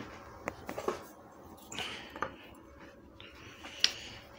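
Light wooden clicks and knocks as small cut pine pegs are set down and shifted on a pine board, a handful of separate taps with the sharpest near the end.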